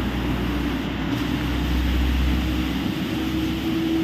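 Hitachi EX5500-5 mining excavator running, a loud, steady machine drone with a deep rumble that eases about three seconds in and a hum that rises slightly near the end.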